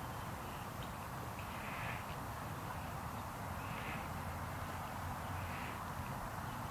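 Faint animal calls, one about every two seconds, over steady outdoor background noise.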